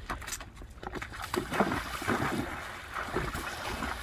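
A Rocky Mountain horse's legs splashing through shallow pond water as he wades in from the bank. The splashes are irregular and come thicker from about a second in.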